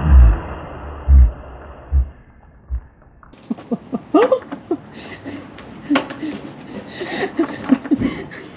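Spraying water from a hose spigot tapering off as the tap is turned, with four loud low thumps in the first three seconds. Then light clicks and brief bits of voice and laughter.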